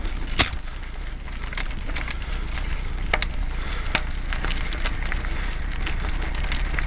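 Mountain bike ridden down a dirt singletrack: tyres rolling and crackling over the trail, with sharp clicks and knocks as the bike rattles over bumps, and a low wind rumble on the camera's microphone.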